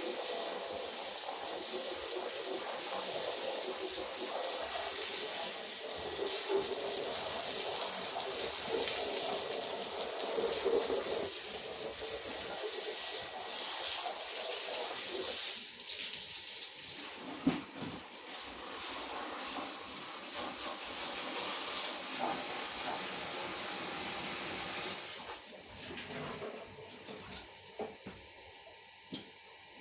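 Rotary polisher brush scrubbing a wet carpet: a steady watery hiss and swish. It gets quieter about halfway through and fades further near the end, with a few light knocks.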